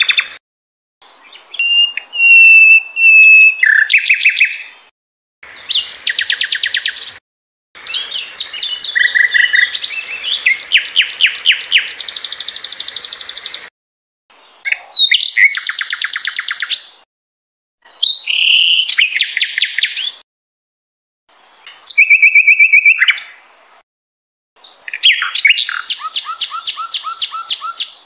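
Sikatan londo songbird singing in separate phrases a second or so apart: fast runs of repeated notes and trills, some high and buzzy, with a few steady clear whistles between them.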